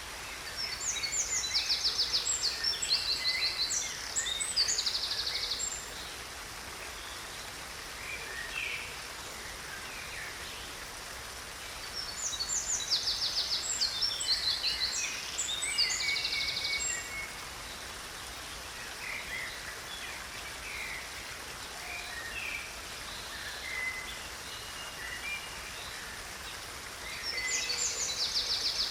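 Stream water running steadily, with a songbird singing bouts of rapid high trills and chirps: once about a second in, again around twelve seconds in, and briefly at the very end.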